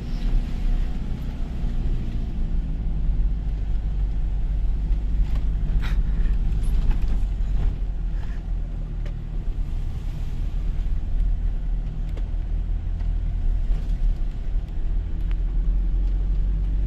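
Two-wheel-drive Toyota HiLux driving over a rough dirt track: a steady low engine and road rumble, with a few sharp knocks and rattles, the clearest about six seconds in.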